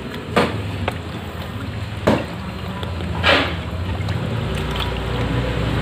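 Catfish splashing in plastic tubs of water as they are handled and sorted, three short splashes over a steady low hum.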